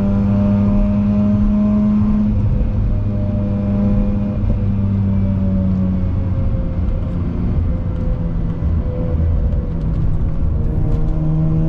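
Car engine and road noise while driving at a steady pace, the engine note holding steady with its pitch drifting slowly up and down.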